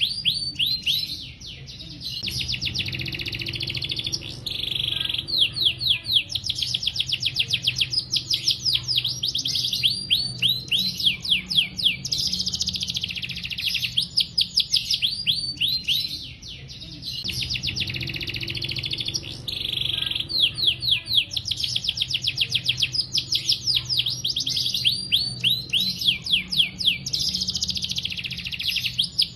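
Male domestic canary singing a long, continuous song: fast runs of high falling notes, several a second, alternating with dense buzzy trills, with only a couple of brief pauses.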